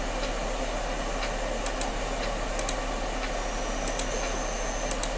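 Steady microphone hiss and hum, with a few sharp computer mouse clicks, each a quick press-and-release double tick, about once a second.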